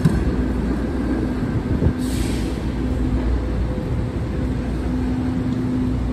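PCC streetcar rolling away along a city street over a steady traffic rumble, with a low steady hum and a brief hiss of air about two seconds in.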